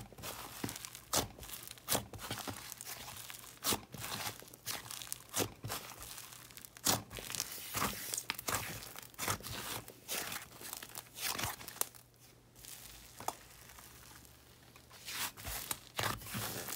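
Soft butter slime being kneaded, pressed and stretched by hand, giving irregular sizzly crackles and small pops of trapped air, with a sparser spell past the middle.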